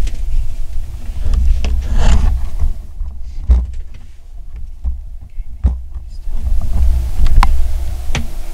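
Wind buffeting the microphone as a low, uneven rumble, with several sharp clicks and knocks from people shifting and handling gear inside a wooden box blind.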